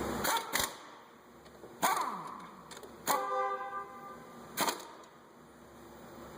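Several sharp metallic clanks of tools or parts being handled. One, about three seconds in, leaves a ringing tone for about a second.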